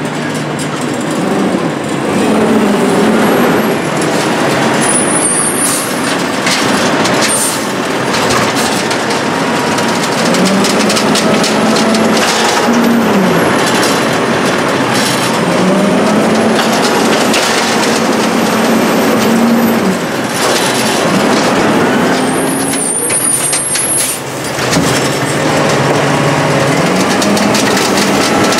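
Diesel engine of a Condor Amrep HX-450 automated side-loader garbage truck revving up, holding high revs for a few seconds and dropping back, several times over. It runs the hydraulic arm that grabs, lifts and dumps a cart. Short air hisses sound in between.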